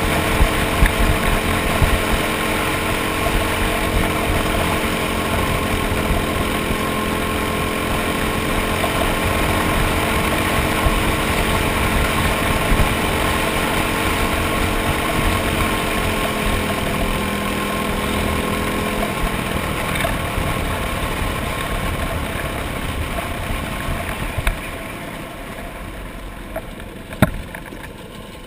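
Racing kart engine running at speed on a dirt track, its pitch holding steady, then the engine note drops away about two-thirds through and the sound fades as the kart slows. A couple of sharp knocks near the end.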